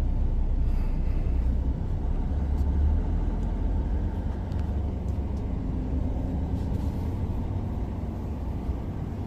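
DAF XG truck's diesel engine heard from inside the cab while driving: a steady low rumble that eases slightly toward the end.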